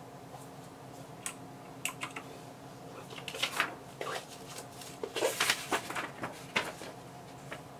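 Keys of a mechanical keyboard clicking in scattered single keystrokes and short bursts of typing, over a faint steady hum.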